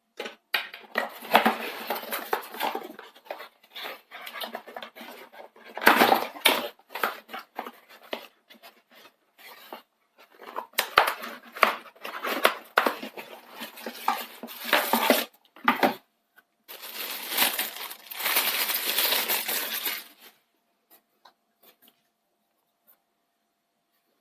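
Packaging and the hard plastic parts of an electric wine opener being unboxed and handled: irregular clatter, clicks and rustling in several bursts, then it stops.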